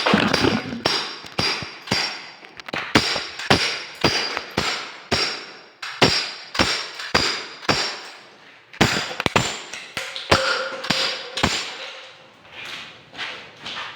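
Repeated hammer blows, roughly two a second and unevenly spaced, with a faint metallic ring after many strikes. The blows thin out near the end.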